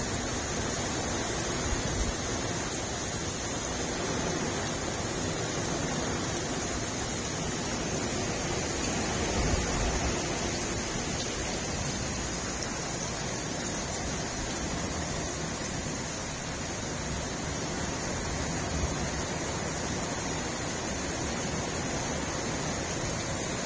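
Heavy rain falling in a steady, even rush.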